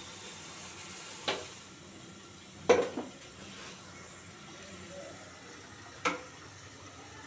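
Metal utensils knocking on a steel gas stovetop: a clank about a second in, a louder double clank near three seconds, and another about six seconds in, over a steady low hiss.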